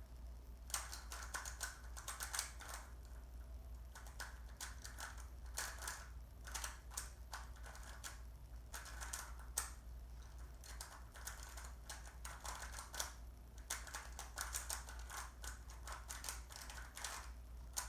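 Rubik's cube being speed-turned: rapid clicking and clacking of the layers in quick runs with short pauses between, over a steady low hum.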